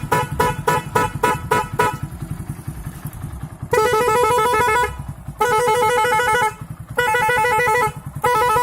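Hero Splendor motorcycle's horn played through a horn tuner, over the engine idling. The horn gives a rapid run of about eight short beeps in the first two seconds, then four longer warbling blasts.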